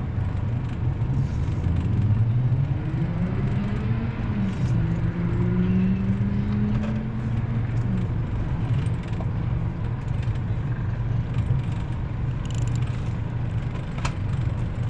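Boat motor running under way with a steady low hum; its pitch climbs a couple of seconds in as the throttle is opened, holds, and drops back about eight seconds in.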